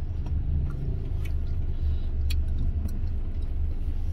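Low, steady rumble of a taxi on the road, heard from inside the car's cabin, with a few faint clicks.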